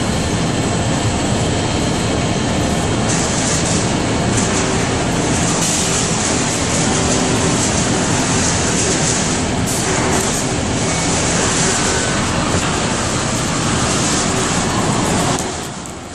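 Industrial wood-fired biomass hot-water boiler plant running: a steady, loud mechanical rumble and hiss with faint steady hum tones. It drops briefly near the end.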